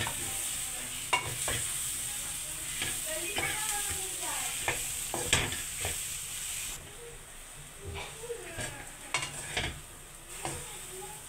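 A wooden spatula stirring and scraping mashed potato with fried onion in a stainless steel kadhai, knocking against the pan now and then, over sizzling oil. The sizzle drops away about two-thirds of the way through.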